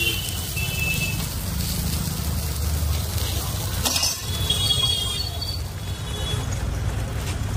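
Steel spoon clinking against a small iron frying pan, with short ringing metal tones and a sharper knock about four seconds in, over a steady low rumble.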